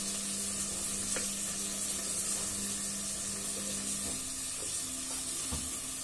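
Pancit guisado (noodles with chicken, carrots and celery) frying in a steel pot, with soy sauce being poured in: a steady sizzle throughout.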